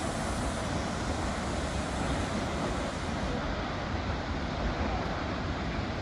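A steady, even rush of falling water from the Tad Fane twin waterfalls.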